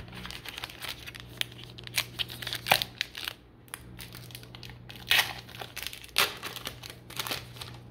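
Wrapper of a baseball card pack crinkling and tearing open in uneven crackles, the loudest about five and six seconds in.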